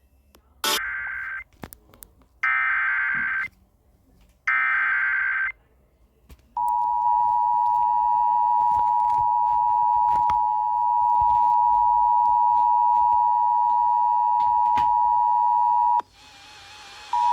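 Emergency Alert System tones on NOAA Weather Radio. Three short bursts of raspy digital header data come first. Then the steady single-pitch 1050 Hz weather-radio attention alarm sounds for about nine seconds. It cuts off, and a tone starts again just before the end.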